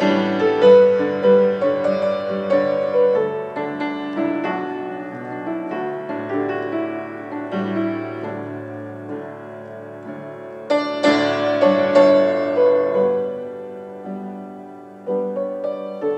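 Solo piano music: a melody over chords, the notes struck and left to ring and fade, with a loud new chord about eleven seconds in and another near the end.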